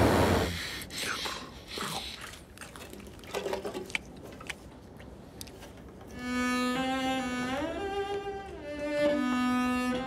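Solo violin coming in about six seconds in, playing a slow melody of held notes that climbs and then falls back. Before it, only faint scattered sounds.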